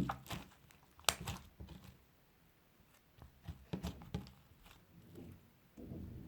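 Hands squeezing and stretching a sticky slime with beads mixed in, giving irregular soft crackles and sticky pops.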